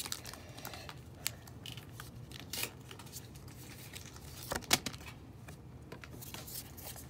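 Faint crinkling of a Pokémon card booster pack's foil wrapper and cards being handled, with a few sharp little clicks and snaps, the loudest about a second in and again just under five seconds in.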